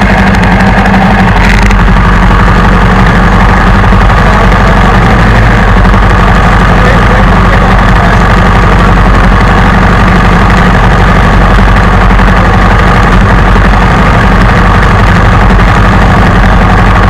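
Motorbike engine idling close by, loud and steady, with no change in speed.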